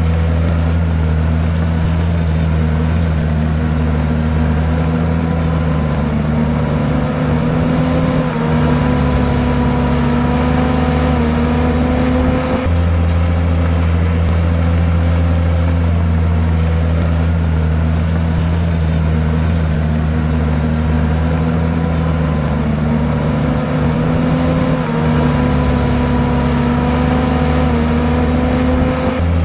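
Komatsu bulldozer's diesel engine running steadily. Its pitch dips twice for a few seconds and then comes back up.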